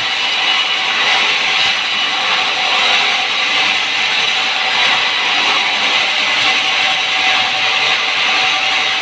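Sawmill saw running through timber, a steady high-pitched hiss that holds without a break.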